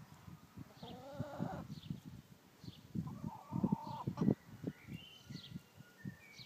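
Hens clucking and squawking, with two drawn-out calls about a second in and about three seconds in, over scattered low knocks and rustles as they scramble and peck. Faint short chirps of small birds sound in the background.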